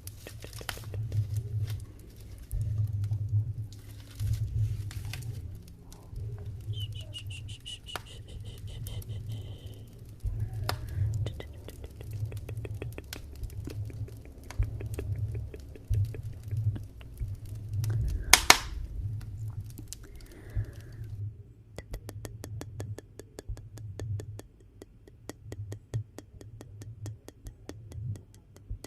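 Wood fire in a fireplace crackling and popping over a low pulsing rumble of the flames, with one loud sharp pop about two-thirds of the way through. A brief high whistle sounds about a quarter of the way in.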